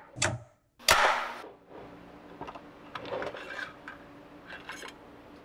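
Hub motor parts being handled: a small knock just after the start, a loud knock about a second in, then lighter scattered clicks and rubbing as the long metal guide rod is handled at the motor.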